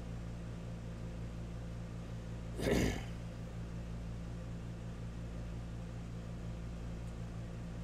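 Steady low electrical hum of the recording, with one brief noise about three seconds in.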